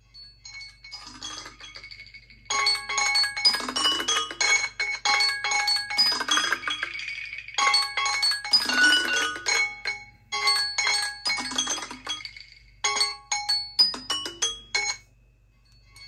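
Samsung Galaxy Clock-app timer alert, a chiming melody of quick short notes, playing from four phones at once and overlapping out of step. It starts faintly about half a second in, gets much louder a couple of seconds later as more phones join, and drops out briefly a few times.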